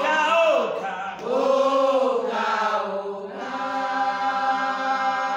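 Women's choir singing a cappella in harmony, with a few gliding phrases and then a long held chord from about halfway through.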